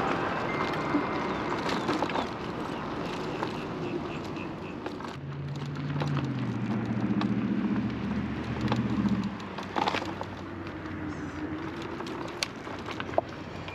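Wind and road noise while riding an Inmotion RS electric scooter in traffic. A nearby motor vehicle's low engine hum swells about five seconds in and fades a few seconds later, with a few sharp clicks near the end.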